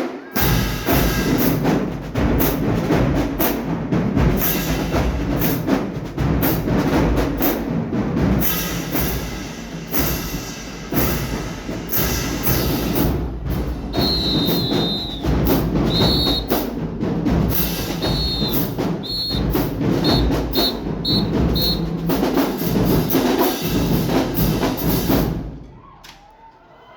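Marching band playing a drum-heavy piece, with bass drums and other percussion over sustained low tones, and a run of short high whistle-like tones in the middle. The music stops abruptly near the end.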